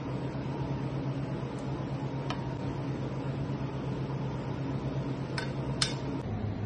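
Steady machine hum, with a few short sharp clicks of a metal spoon against the pan and tray, the loudest one near the end.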